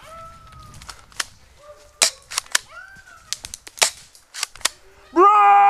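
Airsoft guns firing: about nine sharp, irregular pops spread over a few seconds. A drawn-out shouted voice starts near the end.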